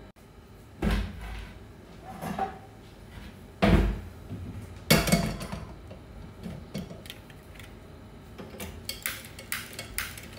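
Cookware being handled on a gas stovetop: four heavy knocks and clatters as a pot and a wok are moved and set down over the first five seconds. Then a quick run of sharp clicks near the end, from a long-neck gas lighter worked at the burner.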